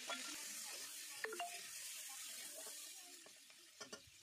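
Chopped onions and tomatoes sizzling in hot oil in a wok, the sizzle slowly fading, with a few clinks of a metal spatula stirring them about a second in and again near the end.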